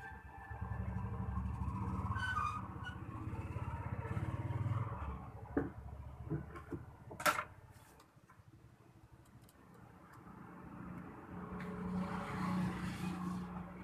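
A low, steady mechanical hum that fades out midway and builds again near the end, with a few sharp clicks in between, the loudest about seven seconds in.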